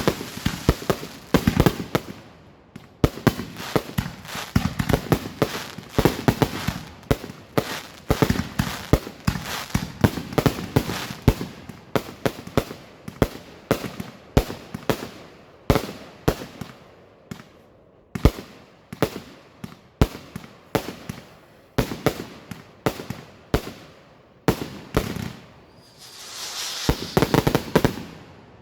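Fireworks finale: a rapid barrage of sharp bangs and crackling, several reports a second. Near the end comes a longer crackling rush, and then it stops.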